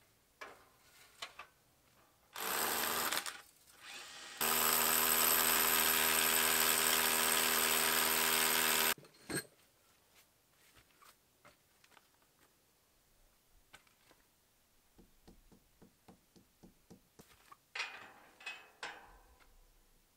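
Power drill boring into the stone wall: a short burst, then about four and a half seconds of steady drilling that stops abruptly. Later, a run of light, evenly spaced knocks and a few scraping sounds.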